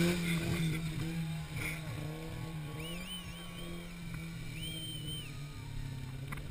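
A 4x4 off-road truck's engine running with a steady low drone, a little louder in the first second and then settling.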